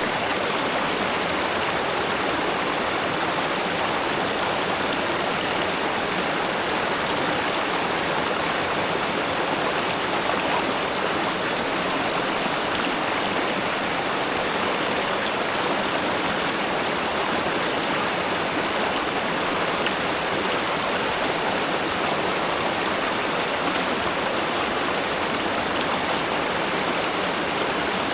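River water flowing steadily, a continuous even wash without breaks or changes.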